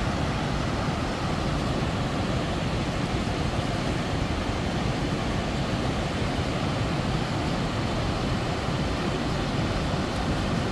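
Steady, unbroken rush of the Youghiogheny River's whitewater at Ohiopyle Falls.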